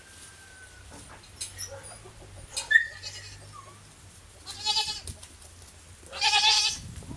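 Goats bleating twice, a shorter call and then a longer, louder one near the end. A brief sharp high chirp comes about two and a half seconds in.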